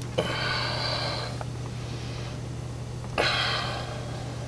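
Two sharp exhalations of effort, one at the start and one about three seconds in, while a rubber oxy-acetylene hose is pushed hard onto a brass barbed union fitting. A steady low hum runs underneath.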